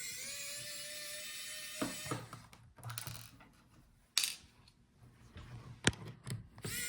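Small electric screwdriver whirring for about two seconds as it backs out laptop hinge screws, followed by light clicks and clatter of screws and metal and plastic parts being handled, with one sharp click about six seconds in.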